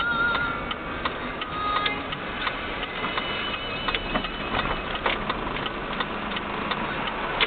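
Car running through city traffic, heard from inside the cabin: a steady road and engine rumble with irregular clicks and rattles, and faint steady tones.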